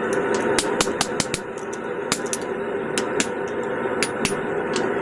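Irregular hammer blows on hot steel at the anvil, several a second in clusters, over a steady roar underneath.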